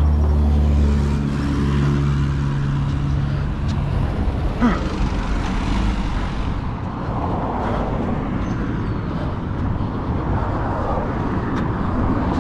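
Small box truck passing close by: a steady engine drone that drops away about two and a half seconds in, leaving a steady rush of road noise. There is a short rising squeak near the middle.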